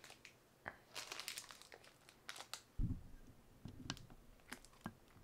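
Plastic wrapper of a Feastables chocolate bar crinkling in the hands, then just before three seconds in a bite snapping off a piece of the bar, the loudest sound, followed by a few small crunches.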